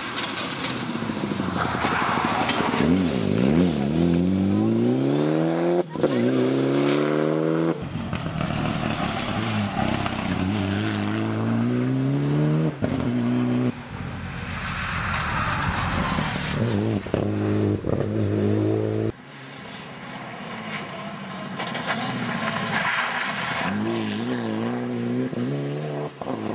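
Mitsubishi Lancer Evo VIII rally car's turbocharged four-cylinder engine revving hard through the gears, its pitch climbing and dropping with each shift. Abrupt cuts between several passes.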